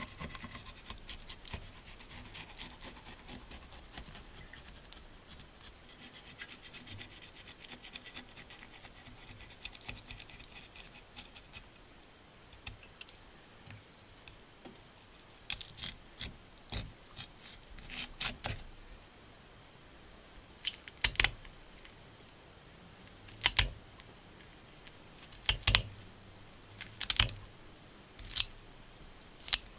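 A serrated knife slicing along a largemouth bass's backbone on a cutting board, a soft continuous scraping. In the second half, kitchen shears cut the rib bones free of the backbone, with a series of sharp snips; about six loud ones come near the end.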